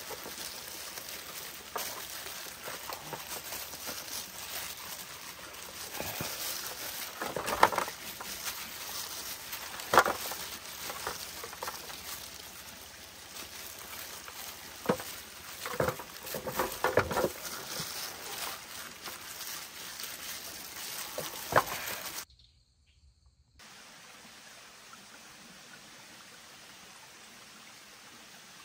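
Scattered knocks and clatters from cooking work over a steady hiss of running stream water. About three-quarters of the way through the sound drops out for a second, then only a quieter, even hiss continues.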